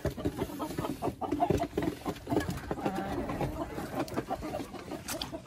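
Hens clucking, a string of short overlapping clucks from several birds.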